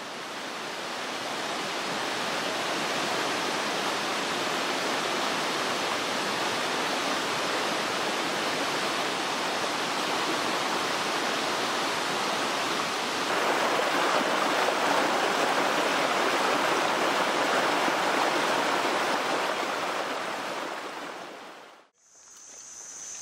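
Mountain stream rushing steadily. It fades in, grows louder and fuller about halfway through, and fades out near the end.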